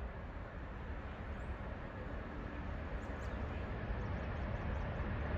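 Steady outdoor background rumble, with a few faint, short, high bird chirps, the most of them near the end.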